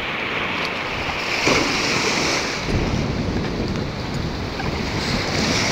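Small waves washing up on a sandy beach, the hiss of the surf swelling twice. Wind rumbles on the microphone from about halfway.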